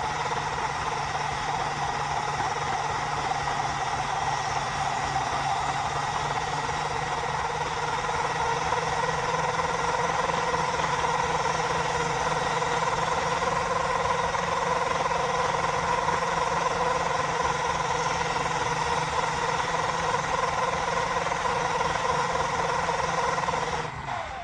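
Toy RC car's small electric motor and gear drive running steadily, with a high-pitched whine from the ESC ringing over it. The running cuts off shortly before the end.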